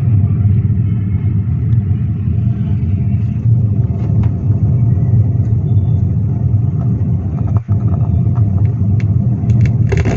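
4.1 home theater amplifier playing loudly through its subwoofer, a deep steady boom heavy in bass, while the repaired unit is tested. The sound cuts out for an instant about seven and a half seconds in, and a short crackle comes near the end.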